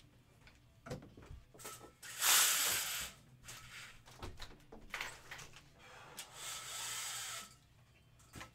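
Room window being slid open: two long scraping rushes, the first louder, with a few knocks between them.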